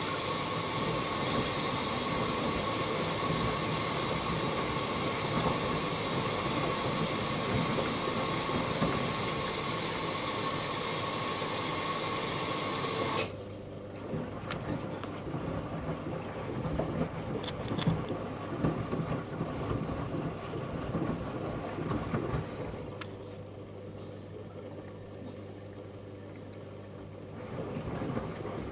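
Miele W1 front-loading washing machine during its first rinse. A steady rush of water entering and spraying into the drum, with a faint whine, stops suddenly about thirteen seconds in. After that, the drum turning the wet load makes sloshing and soft thuds.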